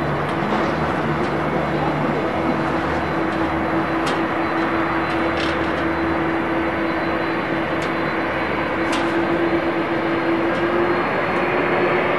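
Jet aircraft engines running: a loud, steady noise with a constant hum in it, and a lower hum that fades out about two seconds in.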